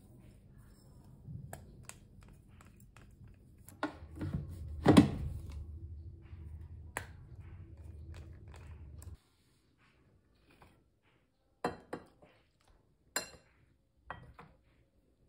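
Kitchenware clicking and knocking: a steel grinder jar handled against a glass bowl as bread crumbs are tipped out, with the loudest knock about five seconds in. The sound cuts off about nine seconds in, and a few single clicks of a spoon in a ceramic bowl follow.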